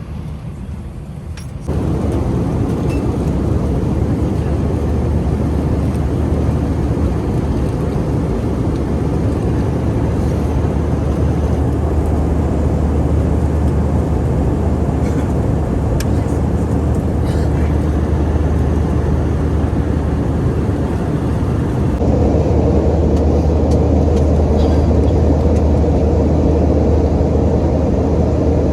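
Airliner cabin noise: the steady roar of the jet engines and airflow with a deep hum underneath. It jumps louder about two seconds in and again about 22 seconds in.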